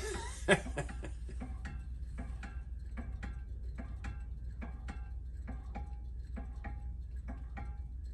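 Heat-engine fan running, its mechanism ticking steadily about three times a second with a light metallic ring. A short laugh comes about half a second in.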